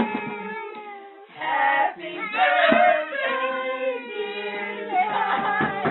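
Singing: several voices holding and changing notes together, as in a song.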